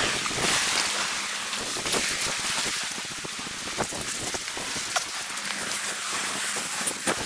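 Sea washing at the edge of a shingle beach: a steady hiss with a dense patter of small clicks from the pebbles.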